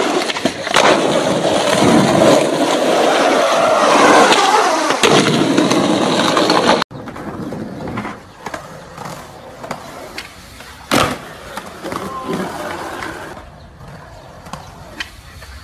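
Skateboard wheels rolling on asphalt, with clacks of the board popping and landing. Halfway through, the sound cuts to quieter rolling with a few sharp clacks, the loudest a little after that.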